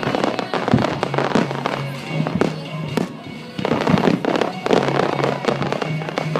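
Aerial fireworks bursting in quick succession, a string of sharp bangs and crackles, several in each second.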